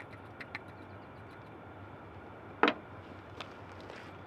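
Small clicks and taps from handling the parts of a portable espresso maker and its coffee-grinder vessel while ground coffee is tipped in, with one sharp knock about two and a half seconds in and a couple of lighter ticks near the end.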